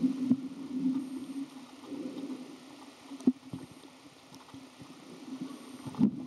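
Muffled underwater noise picked up by a camera held below the surface: a low steady hum with irregular clicks and knocks, the sharpest about three seconds in and near the end.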